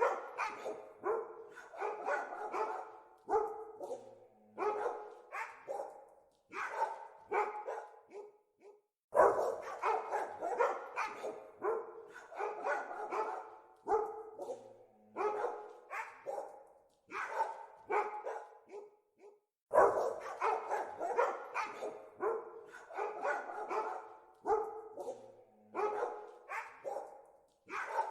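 Dogs barking in rapid volleys of several barks a second, with brief pauses between the runs.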